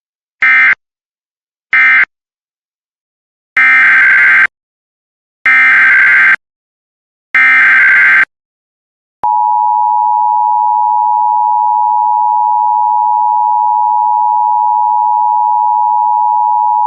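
EAS SAME digital data bursts: two short end-of-message bursts, then three longer header bursts for the next alert. About nine seconds in they are followed by the steady two-tone EAS attention signal (853 and 960 Hz), which holds through the end.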